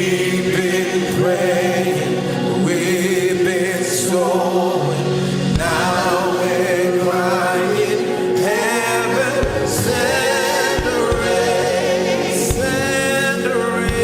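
Gospel worship music: a choir singing over a band accompaniment, with low drum thumps coming in about halfway through.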